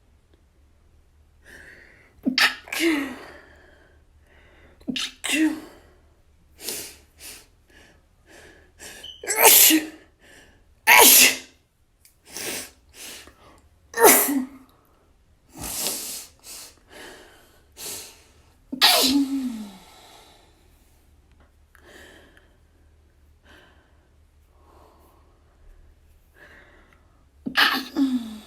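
A person sneezing again and again, a mix of stifled and full sneezes of varying strength, with short breaths between. The loudest sneezes have a brief falling voiced tail.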